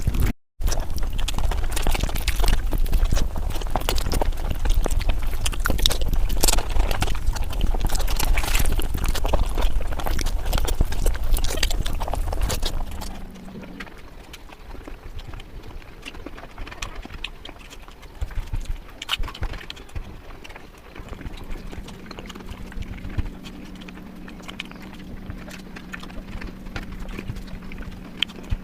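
Close-miked eating sounds of rice and egg curry: wet chewing with rapid lip-smacking clicks. It is loud with a low rumble for about the first half, then drops to quieter chewing, with a faint steady hum in the background near the end.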